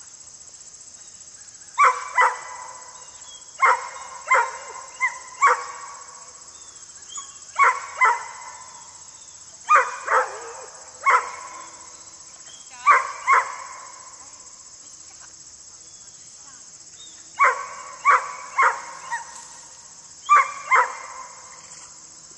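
A dog barking repeatedly, sharp single barks coming in bursts of two to four with pauses of a second or more between the bursts.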